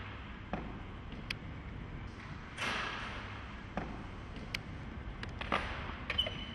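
Workshop handling noises: scattered knocks and clicks, with two short rushes of noise about three seconds apart.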